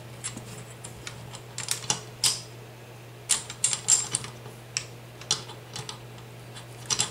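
Irregular light clicks and taps of a shotgun rail's mounting clamp and hard parts being handled and seated over a Mossberg 500 barrel, coming in small clusters.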